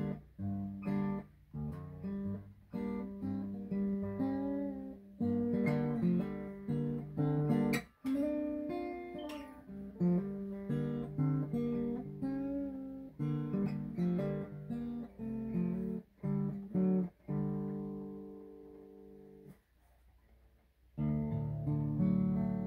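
Taylor 812 grand concert 12-fret slot-head acoustic guitar played solo, a steady run of picked notes and chords. Near the end the playing thins out and dies away, then a new chord rings in.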